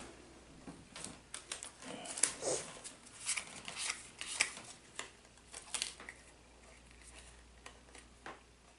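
Foil trading-card booster pack wrapper being torn open and crinkled: a run of sharp, irregular crackles that thin out after about six seconds.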